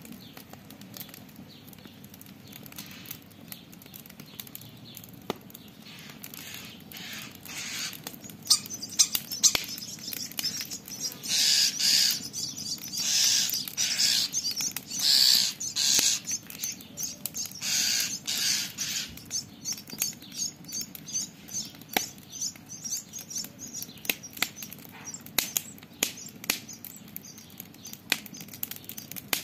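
Campfire crackling with scattered sharp pops. From about 8 to 19 seconds in, a starling scolds over it in a run of harsh, raspy calls.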